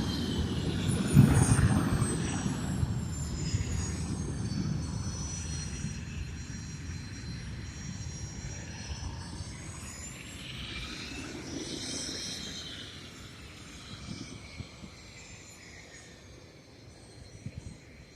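Airplane engines running with a high whine that slides down in pitch, rises again about twelve seconds in and falls once more, the rumble fading steadily as the aircraft moves away.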